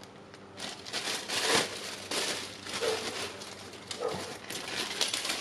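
Clear plastic parts bag crinkling and crackling irregularly as gloved hands open it and pull out a replacement return spring, starting about half a second in.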